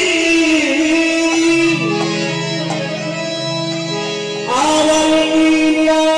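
Bengali devotional kirtan music: a sustained sung melody, with the khol drum played along.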